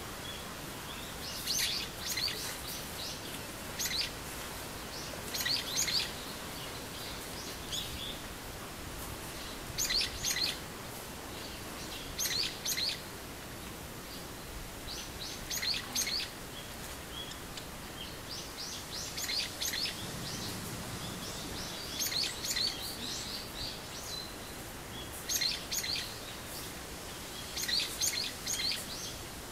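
Small birds chirping in short high clusters every few seconds, over a steady background hiss.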